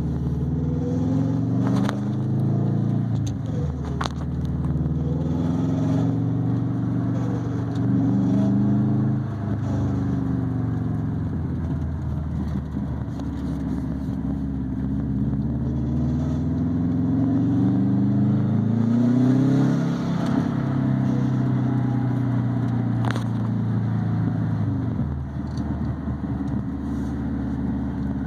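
2004 Subaru Impreza WRX STI's turbocharged flat-four engine pulling through the gears while driving, its pitch climbing and then dropping at each shift, with a few sharp clicks along the way. This is the unexplained noise that the car makes while driving.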